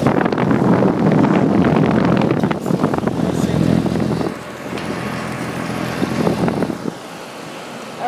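Carrier Performance Series central air conditioner's outdoor condenser unit running, its fan air blowing across the microphone held close to the grille. The noise is loudest for about the first four seconds, then drops and is quieter near the end.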